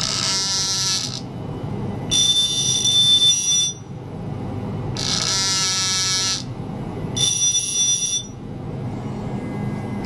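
Ultrasonic probe on a glass bottle, driven by a signal generator, giving off four buzzing, beep-like bursts of about a second each with short gaps between them, over a steady low hum.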